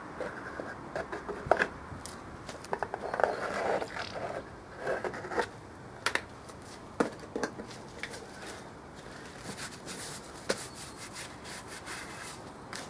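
Gloved hands rubbing and scraping on a large off-road tyre and its steel wheel rim, with scattered light knocks and clicks.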